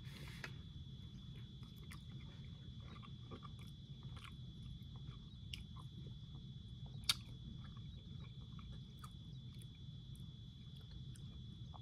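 A person chewing a mouthful of fried herring, faint and soft, with small scattered clicks over a steady low hum. One sharper click comes about seven seconds in.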